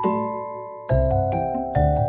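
Background music: a light tune of bell-like mallet-percussion notes over deep bass notes, with a new note struck every fraction of a second.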